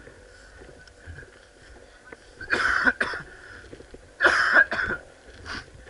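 A person coughing twice, loud and close to a head-worn microphone, the coughs about a second and a half apart, with light clicks and rustles of movement between them.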